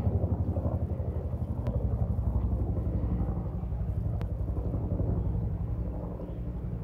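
Bell 205A-1 helicopter flying at a distance, its two-bladed main rotor beating in a fast, even pulse of about ten beats a second over a low hum. The sound grows fainter near the end as the helicopter moves away.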